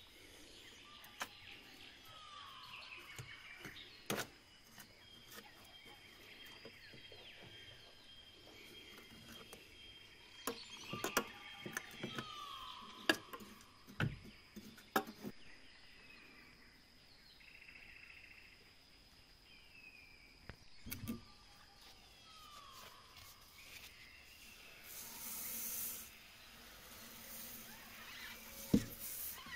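Bird calls over a steady high-pitched tone, with a falling whistle three times about ten seconds apart and scattered sharp clicks; a short hiss near the end.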